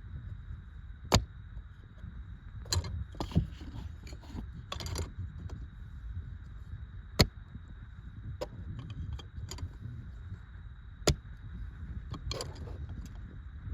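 Handling noises as the supports holding a freshly glued convertible back window are taken off: a few sharp clicks spread across, with rustling between them. A steady low rumble of wind on the microphone runs underneath.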